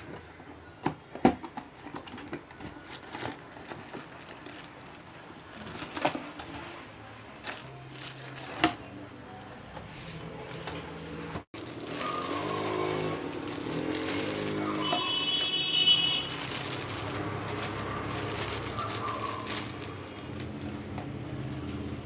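Cardboard toy box being handled and opened, with scattered clicks and taps, then clear plastic wrapping crinkling around a toy helicopter. From about halfway a tune of stepping tones plays along.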